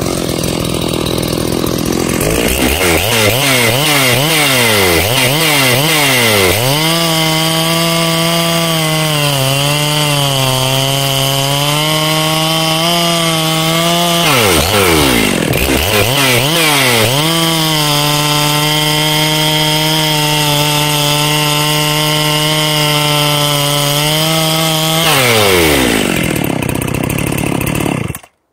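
Two-stroke chainsaw revved with a few quick throttle blips, then held at full throttle while cutting through a ponderosa pine log for about eight seconds. It drops back, is blipped again, and makes a second cut of similar length, then revs down and stops abruptly near the end.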